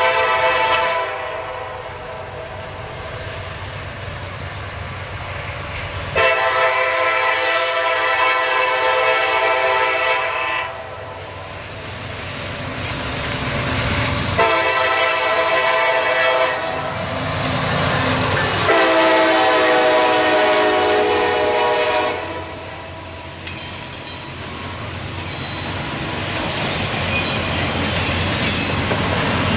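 Norfolk Southern diesel locomotive's air horn sounding four blasts, the second and fourth held long: the grade-crossing warning. The last blast drops in pitch as the locomotive passes, and the horn gives way to the rumble and clickety-clack of double-stack intermodal cars rolling by.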